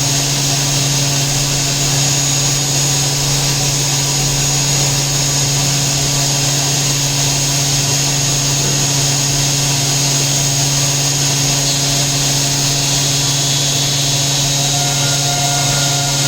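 Hurco VMX 30 vertical machining center running steadily: a constant low hum with a thin high whine above it. A further pair of tones comes in near the end.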